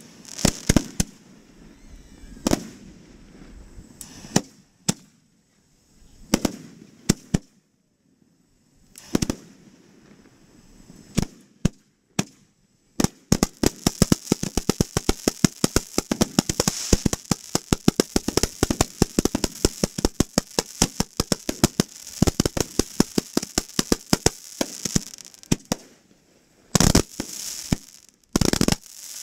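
Fireworks display going off at close range: single sharp bangs every second or two, then from about halfway a dense run of rapid bangs, several a second, lasting roughly thirteen seconds, and a few louder bangs near the end.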